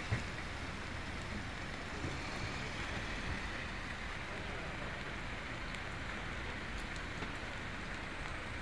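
Steady street noise of traffic on a wet road: vehicles driving past with a continuous hiss of tyres on the wet surface.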